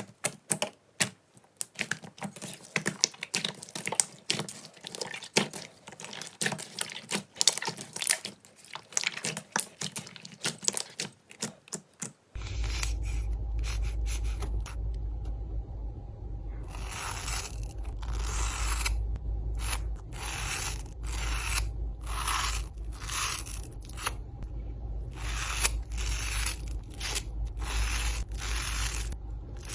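Slime being handled for ASMR: a dense run of crackling clicks and pops, then, about twelve seconds in, a cut to repeated scraping strokes about a second apart over a steady low hum.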